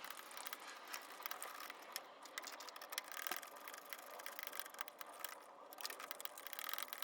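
Rapid, faint clicking of a hand ratchet wrench being worked back and forth on engine bolts, with a few sharper metal clicks about three seconds in.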